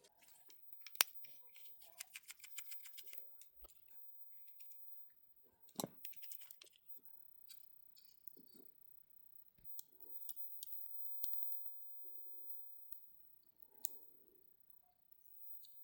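Small plastic clicks and taps from a 1/64-scale micro RC car being handled, with a quick run of about ten ticks a second starting about a second in and a few sharper single clicks.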